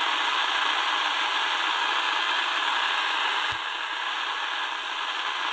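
Tecsun DR-920C shortwave radio's speaker giving a steady rush of static between stations as the dial is tuned across the 14–15 MHz shortwave range, with a brief click about three and a half seconds in.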